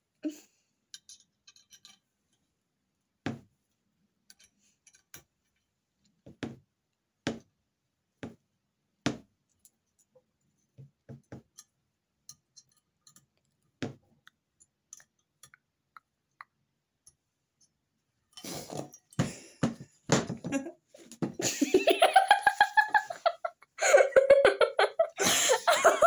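Aluminium crossbow stock parts and small screws clicking and clinking against each other and the workbench as they are handled, in scattered single knocks. Near the end, loud laughter takes over.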